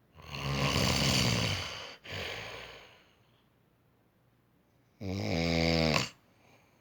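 A man snoring loudly in his sleep. A long, rasping snore of about two seconds is followed at once by a shorter, softer breath. After a pause of about two seconds comes a second snore of about a second, buzzier and more clearly pitched, which stops abruptly.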